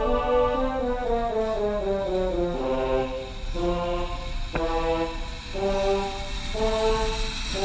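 Music: a slow melody of held brass notes, stepping down in pitch over the first few seconds, then moving between higher and lower notes.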